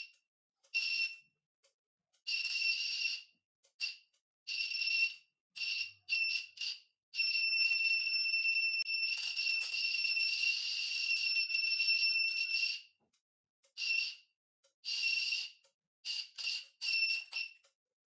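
Electronic buzzer of a battery-powered buzz wire game sounding a high-pitched beep each time the hand-held loop touches the wire maze and closes the circuit. The beeps come in irregular short bursts, with one long continuous buzz of about six seconds in the middle, where the loop stays in contact with the wire.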